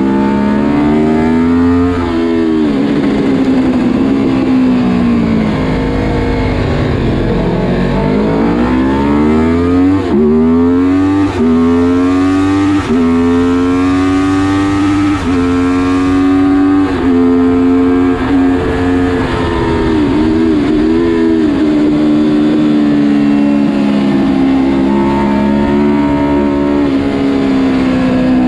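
Honda VFR750 RC24's V4 engine at race speed, heard from an onboard camera. The note falls for several seconds as the bike slows for a bend, then climbs through a run of upshifts, each shift a sudden drop in pitch. It then holds fairly steady, dipping briefly once more.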